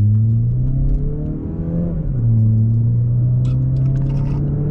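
Mazda3 with a muffler delete accelerating. The exhaust note rises in pitch, drops sharply at an upshift about two seconds in, then climbs slowly again.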